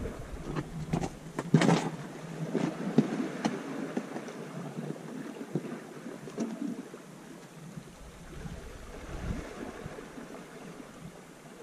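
Steady wind and sea noise on a rocky shoreline, with a handful of sharp clicks and knocks in the first few seconds as fishing tackle is handled.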